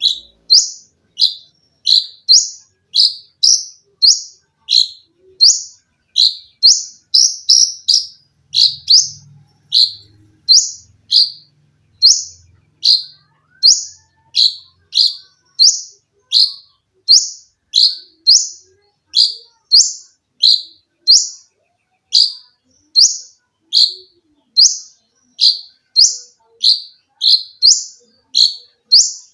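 A konin songbird calling in a fast, even series of short, shrill notes, about one and a half a second. Two note shapes alternate: one sharp rising note and one lower note that drops away.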